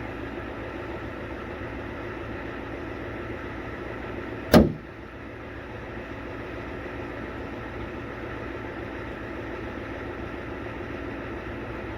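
Steady machine hum with a single loud knock about four and a half seconds in.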